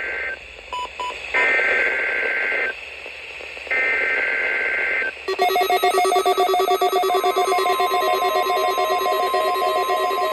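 NOAA Weather Radio SAME header: three bursts of warbling digital data tones, each a little over a second long, with short gaps between them. About five seconds in, the steady 1050 Hz warning alarm tone begins together with the weather radios' rapid alert beeping, the receivers activated by the Required Weekly Test.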